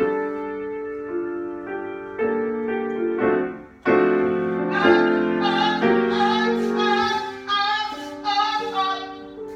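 Piano playing sustained chords, joined about four seconds in by a singing voice held on long wavering notes.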